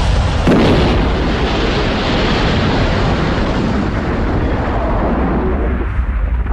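Dramatized sound effect of a jet airliner crashing and exploding: a loud blast about half a second in, then dense noise that dies away near the end over a steady deep rumble.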